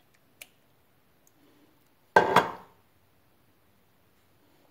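Two quick metallic knocks a little over two seconds in, from the emptied tomato tin knocking on metal, with a faint click before.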